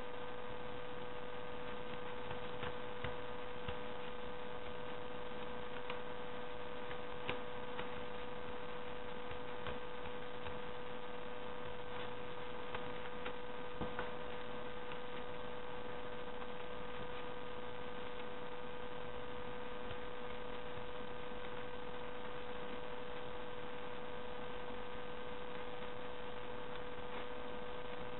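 Steady electrical hum with a constant high tone, over faint, scattered snips of small scissors cutting folded paper.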